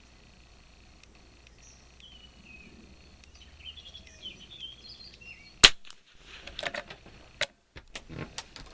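A single shot from a Kimber 82G bolt-action .22 rimfire target rifle about two-thirds of the way in, the loudest sound, followed by a run of sharp metallic clicks and clacks as the rifle is handled. Birds chirp faintly before the shot.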